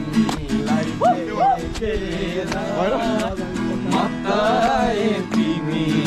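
Background music: a song with a voice singing over plucked guitar and a steady beat.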